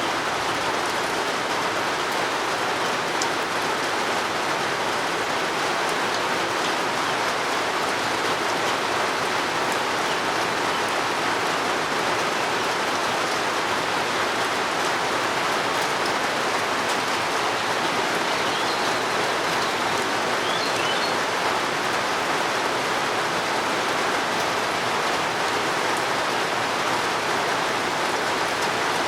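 Steady rain falling, an even, unbroken hiss. A few faint bird chirps come about two-thirds of the way through.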